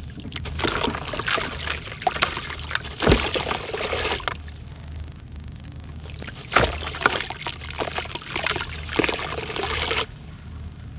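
A dry sand-and-dirt ball crumbling in the hands and pouring into water in a plastic tub, a crackly trickle and splash in two spells, the second starting about six and a half seconds in.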